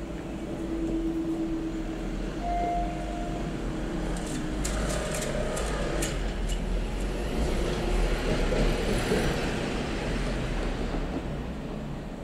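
Level crossing barriers lifting with a steady hum for the first few seconds, then road traffic moving off over the crossing: a bus and then a car pass, loudest about eight seconds in.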